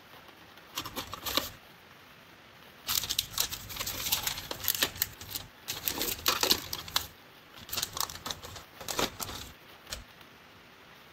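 Hard plastic clicking, tapping and rattling as water flosser tips are lifted out of a moulded plastic tray and the flosser body is handled, in several bursts of clicks, with a low knock near the end.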